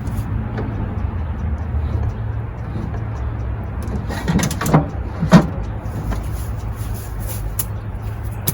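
A few sharp knocks and clanks of hands and tools working on an outboard motor, the loudest about five seconds in, over a steady low hum.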